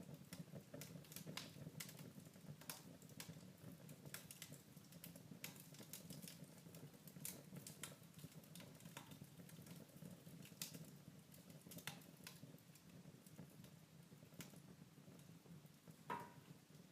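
Wood fire crackling softly in a fireplace: irregular small pops and snaps over a low steady rumble, with one louder pop near the end.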